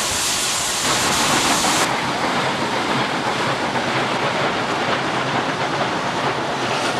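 Steam cog-railway locomotive passing close by, giving a loud, dense rush of steam and exhaust hiss that thickens about a second in.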